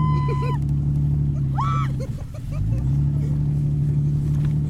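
Jeep engine running steadily while pulling the tubes. It eases off briefly about two seconds in, then rises back up in pitch. Short shouts from the riders ring out over it near the start and in the middle.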